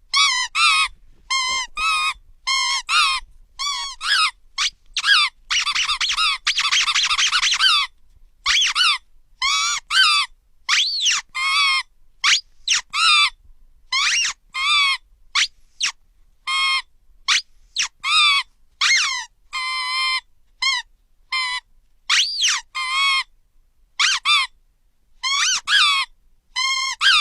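Squeaky toy squeaked over and over in short, wavering squeaks, with one long run of continuous squeaking partway through.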